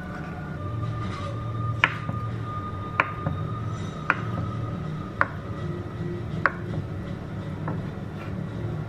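Chef's knife slicing through a block of canned luncheon meat and knocking on a wooden cutting board, six sharp knocks about a second apart.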